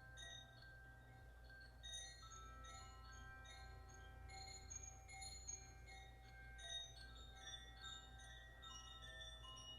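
Quiet quartz crystal singing bowl music: several long ringing tones overlap, with many short bell-like high notes over them and a low steady hum beneath.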